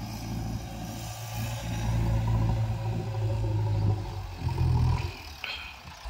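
Diesel engine of a JCB 3DX backhoe loader working as the loader arm raises a bucket of soil over a trailer: a steady low drone that rises briefly about four and a half seconds in, then eases off.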